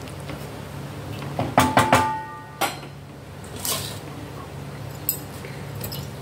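Metal ladle knocking against a stainless steel cooking pot several times in quick succession about a second and a half in, the pot ringing briefly, followed by a few lighter clinks, over a steady low hum.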